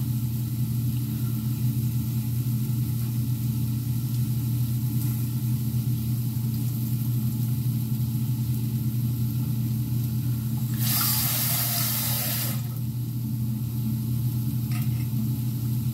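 Rice being rinsed at a sink: tap water runs for about two seconds, some eleven seconds in, over a steady low hum that runs throughout.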